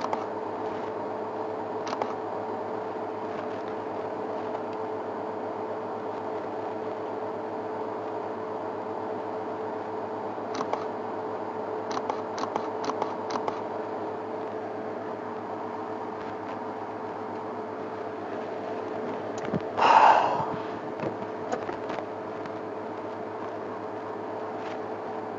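Steady mechanical hum, with scattered faint clicks and snaps and one brief, louder sound about twenty seconds in.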